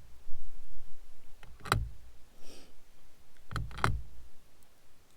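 Sharp plastic-and-metal clicks of 17 HMR cartridges being pressed into the Savage 93R17's detachable box magazine: one near two seconds in, then a quick pair a little before four seconds.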